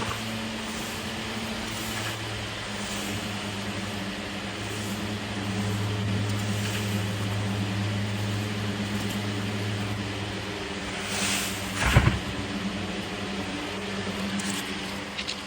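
A steady mechanical hum from a motor or engine, with a sharp knock about twelve seconds in and a few light clicks near the end.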